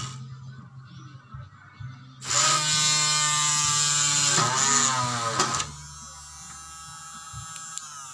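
Handheld mini electric drill running at high speed for about three seconds, its pitch sagging briefly under load as it drills the board. It then shuts off and winds down with a slowly falling whine.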